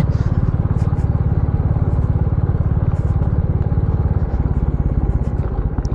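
Royal Enfield Classic 350's single-cylinder engine running at a steady, even beat as the motorcycle is ridden along a rough dirt trail.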